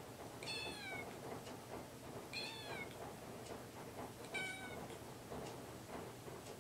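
A young kitten meowing three times, about two seconds apart, each call short, high-pitched and falling in pitch, as it looks up at a person asking for something.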